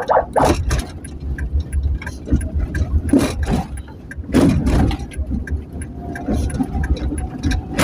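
Motor vehicle on the road: a constant low engine and road rumble, with four or five brief loud whooshes of traffic going by.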